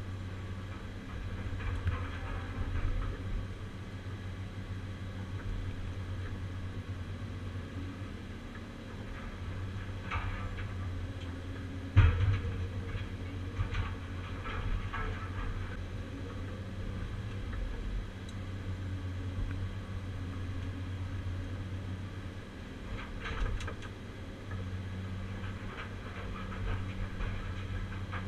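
Caterpillar 345C UHD demolition excavator heard from inside its cab: the diesel engine and hydraulics run steadily, with scattered metallic clanks and one heavy thump about twelve seconds in as the Atlas Copco CC 4700 scrap shear works scrap metal.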